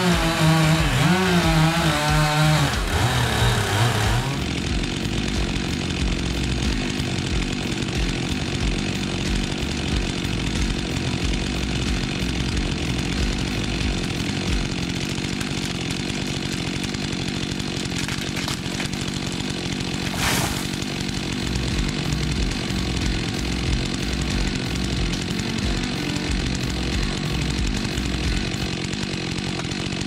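Two-stroke Stihl MS 400 C-M chainsaw running. Its engine pitch rises and falls for the first couple of seconds, then it runs steadily. There is one brief sharp noise about twenty seconds in.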